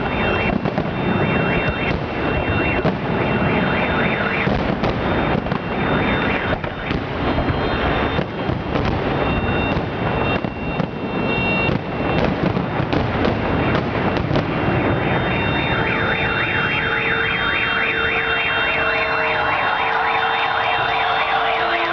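Fireworks salute bursting in quick succession, with car alarms sounding their repeating tones. The bursts stop about fifteen seconds in, leaving the car alarms pulsing on their own.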